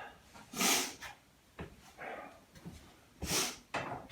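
A man sniffing hard through his nose, twice, from hay fever, with a couple of short knocks in between.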